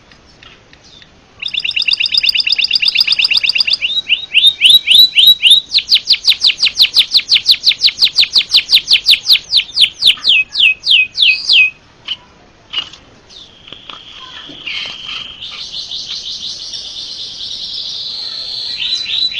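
White-headed munia (pipit haji) singing a long, canary-like song in full voice. After a second and a half of quiet it starts with very fast repeated chirps that run together into a rapid trill, and the trill slows into separate notes. After a brief pause it continues with a softer, unbroken warble.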